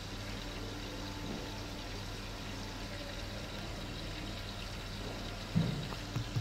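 Turtle tank's water filter running: a steady low hum with water trickling. A short low thump comes near the end.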